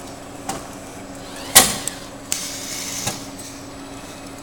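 Vending machine running with a steady hum while it delivers a can, with a few light clicks and knocks and one loud clunk about a second and a half in.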